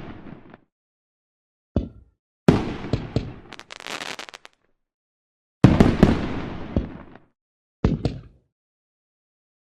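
Fireworks sound effect: four separate bangs, each trailing off in a rumble, with a burst of crackling after the second one. The gaps between bursts are completely silent, as in an edited effects track.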